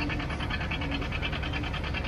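Antique tractor engine running under load as it pulls down the track. Its exhaust makes a rapid, even chuffing, and a short low hum comes and goes several times.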